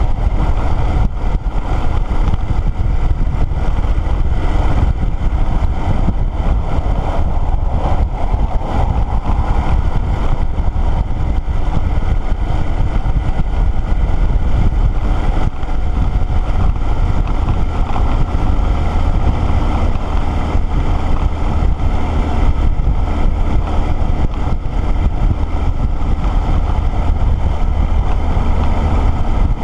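Motorcycle riding at steady road speed: wind rushing over the microphone mixed with engine and road noise, a steady low rumble without breaks.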